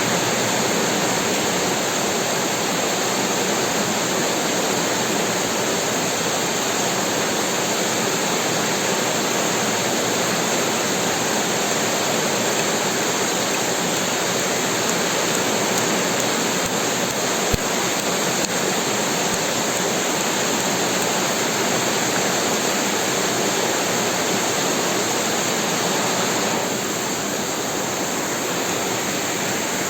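Heavy rain falling steadily, an even dense hiss. A single sharp click cuts through a little over halfway in, and the rain grows slightly softer near the end.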